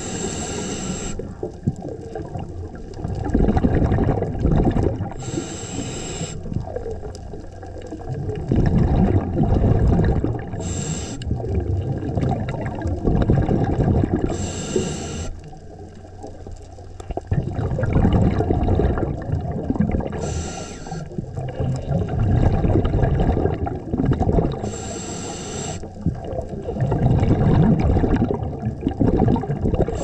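Scuba diver's regulator breathing underwater: a short hissing inhale through the demand valve about every four to five seconds, each followed by a longer low bubbling rumble of exhaled air.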